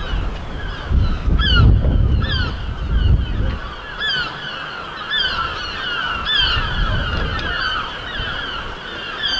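A flock of birds calling over and over, many short downward-sliding honking cries overlapping one another. A low rumble runs under the first few seconds.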